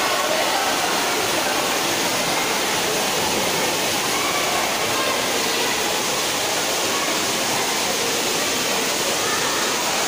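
Steady rush of churning water in an indoor swimming pool, fed by a gushing water-slide outlet and pool jets, with faint voices under it.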